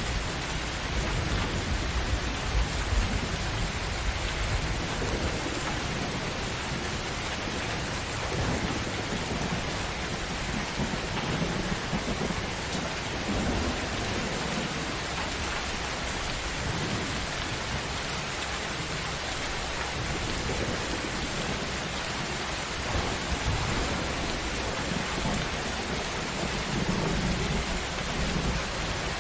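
Steady heavy rain falling, with low rolls of thunder rumbling under it, strongest near the start and again near the end.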